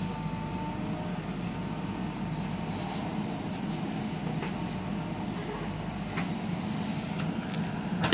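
Diesel engine of a JCB 3DX backhoe loader running steadily, with a few faint knocks and a sharper click near the end.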